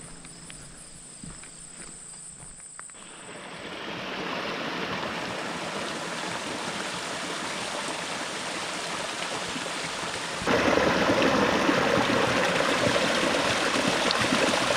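Rushing stream water, swelling in a few seconds in and jumping louder about two-thirds of the way through. Crickets chirp faintly at the start and fade out.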